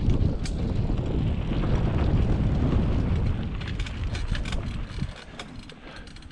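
Wind buffeting the microphone and trail rumble from a mountain bike riding fast downhill. The rumble eases and drops away about five seconds in as the bike slows, leaving scattered light clicks.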